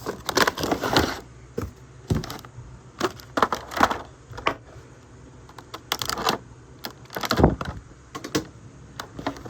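Action figure packaging being opened and handled by hand: irregular scrapes, taps and rustles, with a few louder strokes.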